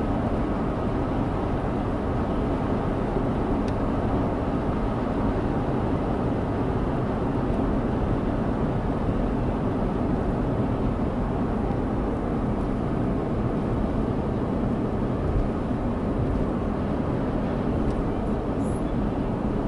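Steady road noise inside a moving car's cabin: an even low hum of tyres and engine that holds constant throughout.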